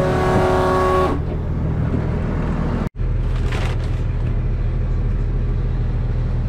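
Combine harvester running, a Massey Ferguson 7244: a steady engine drone under machinery noise. A set of steady whining tones stops abruptly about a second in, and the sound drops out for an instant just before three seconds.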